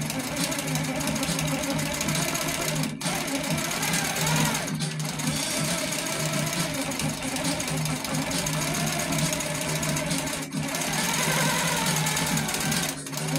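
Baby Lock Coronet quilting machine stitching steadily as the quilt is moved by hand under the hopping foot for free-motion quilting, with a few very short breaks in the sound.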